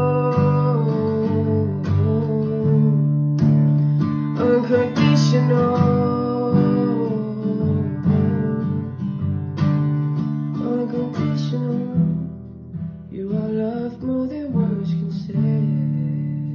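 Acoustic guitar strummed with a man singing long held notes over it. About twelve seconds in, the playing drops to a softer, quieter passage, and the full strumming comes back near the end.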